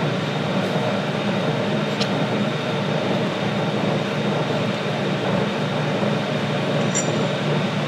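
Steady electric machinery drone in a machine shop, with one light click about two seconds in and a faint metallic ting near the end.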